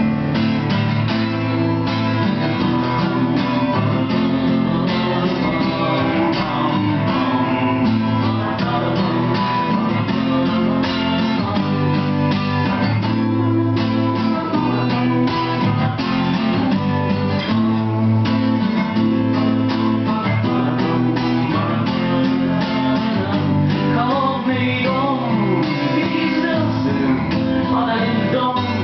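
Two acoustic guitars playing an instrumental break in a song, with steady strummed chords and a lead guitar line over them.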